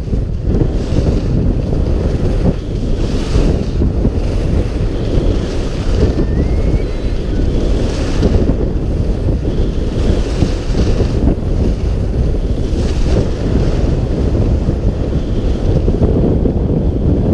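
Wind buffeting a GoPro Hero 4's microphone at skiing speed, a loud steady low rumble, with the hiss of skis on packed snow swelling every second or two as the skier turns.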